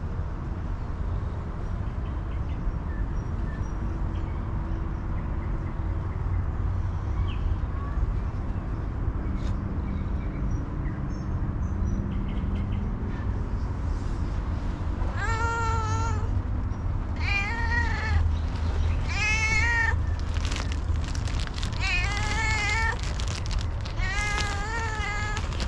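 A hungry stray cat meowing five times in the second half, each meow about a second long, over a steady low rumble.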